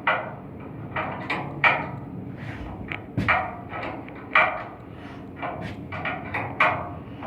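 Irregular metal knocks and clanks, about a dozen in quick, uneven succession, from hand work on an air handling unit's blower during a V-belt change. A steady low hum runs underneath.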